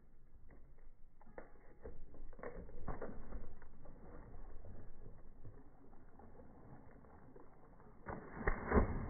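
A young German shorthaired pointer's paws thudding on the dock in a quick run-up before it leaps into the lake, followed by a louder rush of noise with a couple of knocks near the end.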